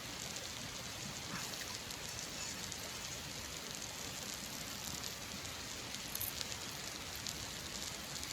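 Campfire with meat cooking over it: a steady hiss with faint scattered crackles.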